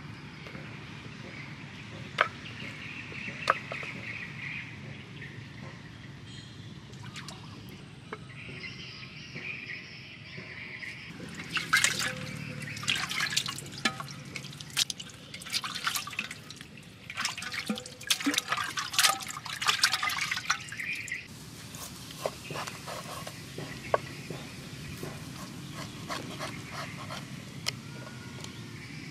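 Water splashing, sloshing and dripping as a raw beef chunk is washed by hand in a clay pot, busiest for several seconds around the middle.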